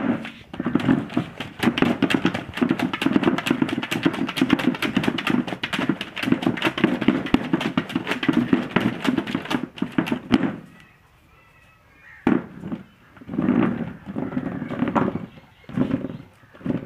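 German Shepherd puppy biting and pawing at a plastic chair: rapid clattering and scraping of the plastic seat and legs on concrete. It stops about ten seconds in, then comes back in a few shorter bursts.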